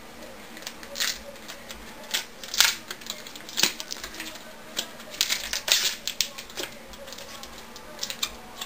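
Tape and paper wrapping being peeled and crinkled off a lithium-polymer battery pack, making irregular sharp crackles and clicks that are densest through the middle.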